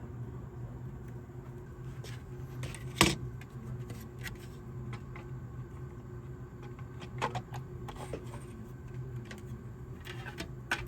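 Scattered small clicks and knocks of parts being handled on a workbench, the loudest a sharp click about three seconds in, over a steady electrical hum.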